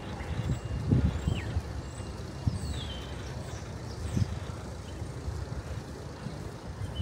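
Outdoor town-centre ambience: a steady low rumble with a few heavier thumps, about a second in and again in the middle, and short high chirps of small birds above it.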